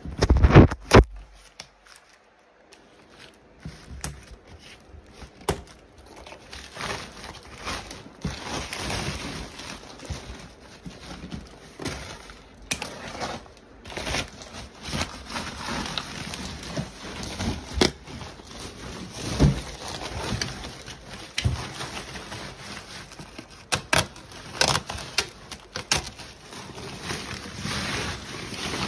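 Scissors cutting a plastic packing strap, a loud sharp snap about half a second in, followed by woven plastic sacking rustling and crinkling, with many short crackles, as it is pulled and torn off a cardboard box.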